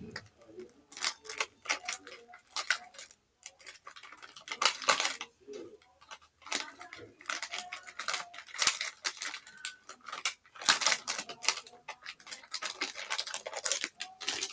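Irregular crinkling and light clicking of a Model Magic clay packet being handled and picked at, in short scattered bursts throughout.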